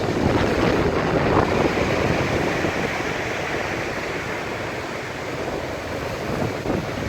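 Storm wind buffeting the microphone, with waves surging and breaking below.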